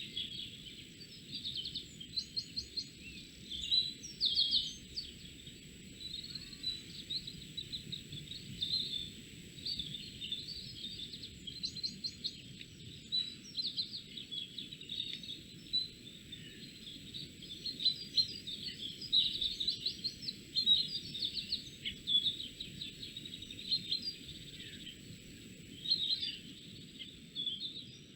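Forest songbirds chirping and trilling in many short, overlapping calls, over a steady low background rumble.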